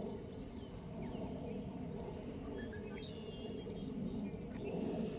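Steady low outdoor background rumble with a few faint, short, high bird chirps now and then.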